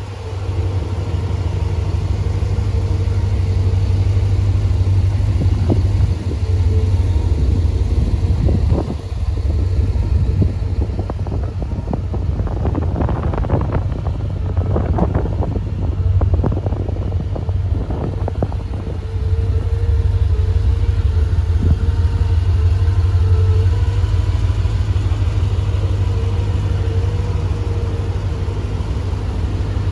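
A car engine idling steadily with a low rumble, joined in the middle by a run of short knocks and rustles from handling nearby.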